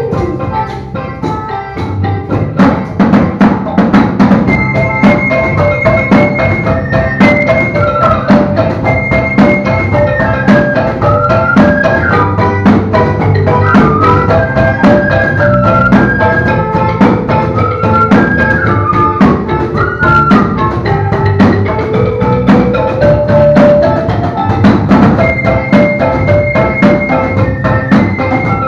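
Kadazan-Dusun folk ensemble playing: a sompoton (gourd-and-bamboo mouth organ) and a bamboo flute carry a stepwise melody, over a steady beat of hand drums and a set of small kettle gongs, with a low sustained drone underneath.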